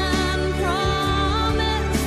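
Background music: a song with a singing voice over steady, sustained instrumental accompaniment.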